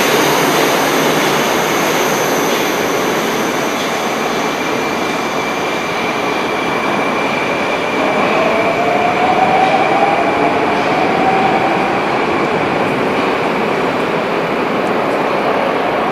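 Metrowagonmash 81-760/761 'Oka' metro train running out of the station into the tunnel, a loud steady rush of wheels and running gear. About halfway through, a whine rises in pitch over it.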